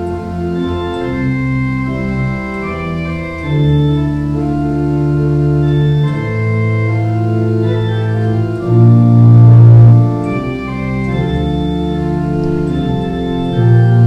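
Organ playing slow, sustained chords that change every second or so, with a heavy bass note swelling about nine seconds in and again near the end.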